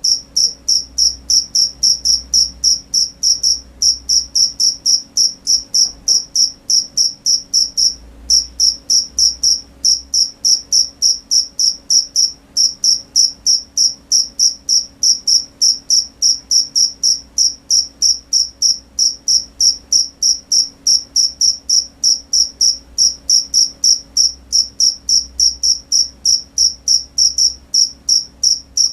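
Crickets chirping at night in a fast, even rhythm of short high-pitched chirps, about two to three a second. A faint steady low hum sits underneath.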